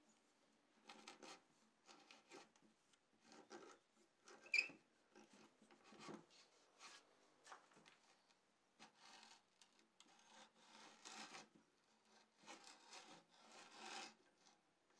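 Hand-cranked geared drill boring into a wooden board: faint rasping strokes in short, uneven bursts as the bit cuts the wood, with one sharp click about four and a half seconds in.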